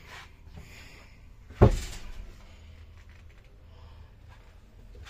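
A single sharp knock about a second and a half in, against faint handling and room noise.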